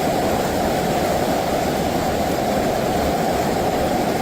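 Floodwater rushing: a loud, steady, unbroken wash of water noise.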